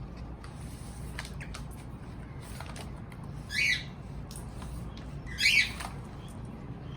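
Cockatiel giving two short squawks about two seconds apart, with a few faint clicks in between.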